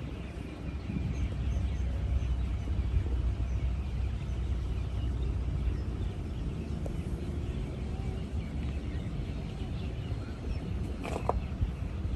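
Birds chirping faintly over a steady low rumble, with a brief sharp knock near the end.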